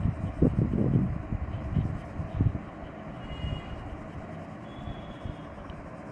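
Pencil shading on drawing paper: quick back-and-forth rubbing strokes, heard as rough low scratches through the drawing surface. They are densest in the first second, with single strokes again about two seconds in, over a steady low background rumble.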